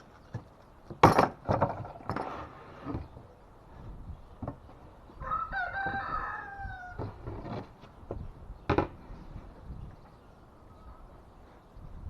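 A rooster crowing once, a falling call about midway, between a few sharp knocks and clatters, the loudest about a second in.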